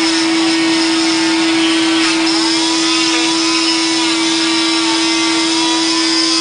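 Oscillating cast saw, with its dust-extraction vacuum hose attached, running steadily against a forearm cast as it cuts through it: a steady mid-pitched hum over the rushing hiss of the vacuum. The upper tones shift about two seconds in.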